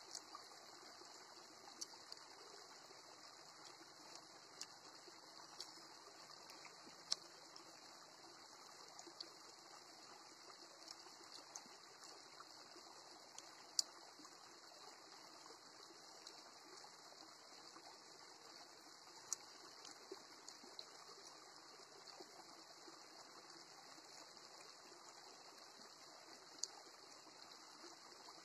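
A man eating roasted chicken: scattered sharp clicks and crunches of chewing and biting, a second or a few apart, the loudest about halfway through, over a faint steady hiss.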